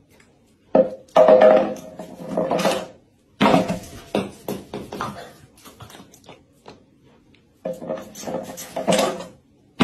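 Plastic treat-dispensing feeder toy scraping and clattering on a wooden floor as a corgi noses and pushes it, in about four irregular bouts.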